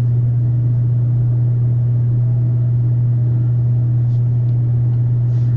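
A loud, steady low hum with no change in pitch, and a few faint light clicks near the end.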